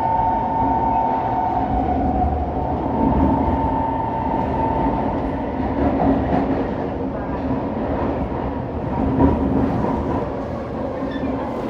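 Kawasaki C151 metro train running through an underground tunnel: a steady rumble of wheels on rail with a motor whine that fades over the first few seconds. A few light clicks come in the second half.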